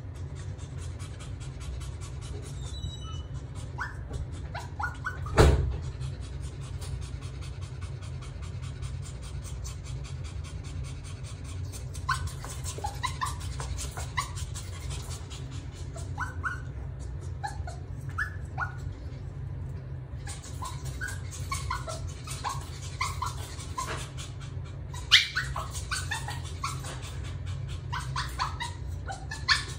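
Pomeranian puppy whining and yipping in short high cries while scrabbling at its wire playpen, the cries coming thicker in the second half. Two sharp knocks stand out, one about five seconds in and one near twenty-five seconds, over a steady low hum.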